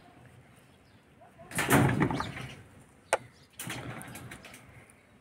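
Two bursts of rustling noise, the first a little over a second long and louder, with a single sharp click between them.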